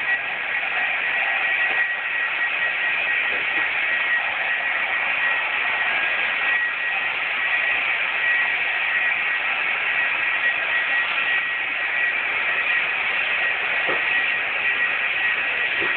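Handheld heat gun running steadily, heating a freshly sprayed layer of taillight tint so it dries between coats. Its blown air gives a steady hiss, with a high motor whine at one steady pitch.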